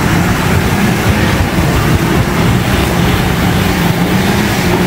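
A 4x4 SUV's engine running hard at high, fairly steady revs under load, its drone dipping slightly and then rising a little near the end.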